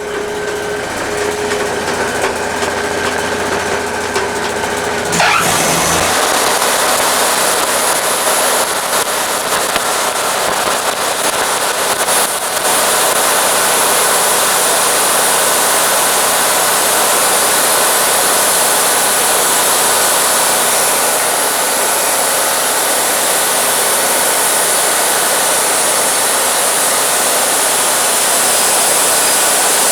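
Wood-Mizer LT40 band sawmill running with its dust collector, a steady machine hum for the first few seconds; about five seconds in it turns to a louder, even hiss as the band blade saws through the driftwood log, getting louder again about halfway in.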